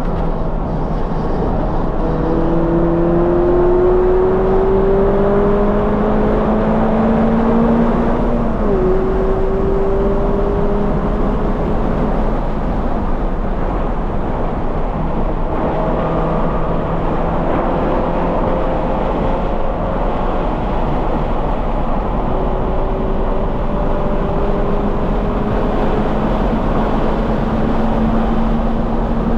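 2020 Toyota 86's flat-four engine with a Corsa cat-back exhaust, running hard on track under a steady rush of wind and tyre noise. Its pitch climbs slowly through long pulls and drops sharply at a shift or lift about eight seconds in and again about halfway.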